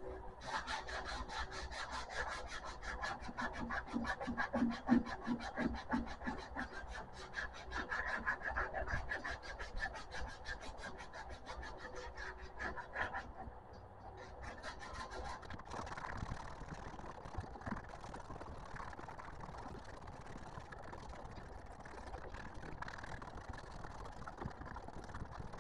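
Hand sanding of cured Bondo body filler on a steel pickup tailgate: sandpaper scratching in rapid back-and-forth strokes, smoothing the filled seams ready for primer. After a brief pause about halfway through, the strokes are lighter.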